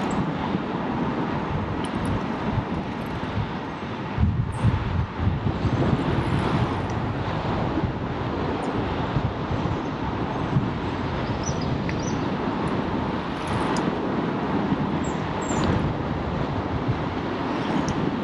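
Wind rushing over a GoPro's microphone on a moving bicycle, a steady noise with heavier low buffeting about four to six seconds in.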